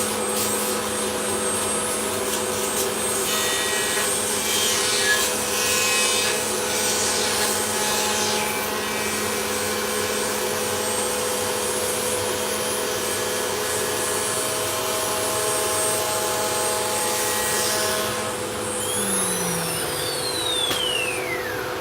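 CNC router machining wood: a steady spindle whine and hiss, with rougher cutting noise coming and going during the first half and again just before the end. Near the end the spindle spins down, its whine falling steadily in pitch.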